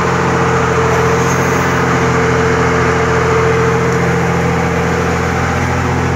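Crane's engine running steadily while the boom lifts a glass pane, with a higher steady whine over it that grows stronger about a second in and eases off later.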